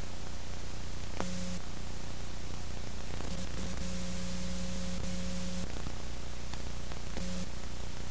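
Steady static hiss with a low electrical hum, cut across three times by a buzz: briefly about a second in, for about two seconds from three seconds in, and briefly near the end.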